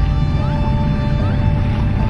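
Background music of sustained held tones with short rising glides, over a steady low rumble.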